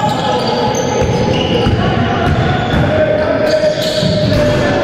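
Basketball bouncing on a wooden sports-hall court during a game, over a steady background of long held tones.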